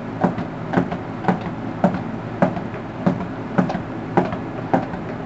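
Juggling balls smacking into the hands as they are caught, a short knock about twice a second at an even pace, over a steady low hum.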